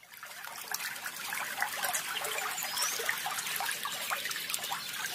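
Trickling water, fading in over about the first second into a steady patter of small splashes.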